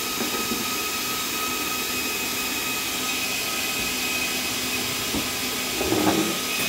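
Cooling fan of a portable 300-bar PCP air compressor running steadily with the compressor pump stopped: an even airy hum with a steady high whine on top.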